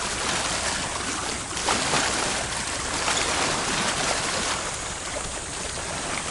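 Seawater washing and sloshing at the shore, a steady noisy wash that swells a little now and then.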